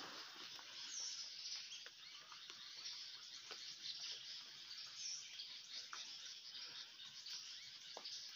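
Steady high-pitched insect drone from the trees, with a few short bird chirps over it.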